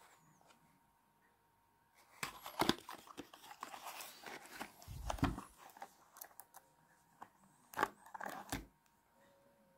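Cardboard box of .32 S&W Long cartridges being opened and handled: rustling and scraping of the cardboard for several seconds, then a couple of sharp clicks near the end as brass cartridges are picked out of the tray.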